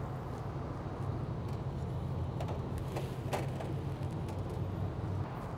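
Steady low machine hum, with a few soft taps and paper rustles as raw chicken drumsticks are set down on a paper-towel-lined sheet pan between about two and three and a half seconds in.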